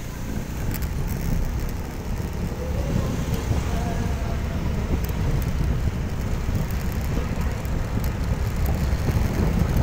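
A motorcycle running while being ridden, with wind rushing over the microphone as a steady low rumble.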